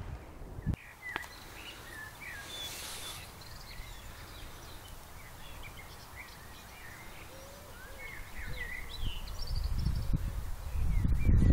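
Songbirds chirping and twittering in short, scattered calls over open pasture. A low rumble of wind on the microphone builds over the last few seconds and becomes the loudest sound.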